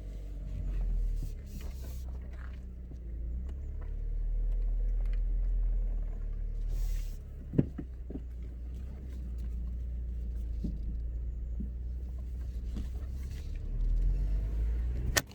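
Seat Leon Cupra Mk1's 1.8-litre turbocharged four-cylinder engine running at low revs as the car is driven slowly, a low rumble that swells and eases several times. A single sharp click is heard about halfway through.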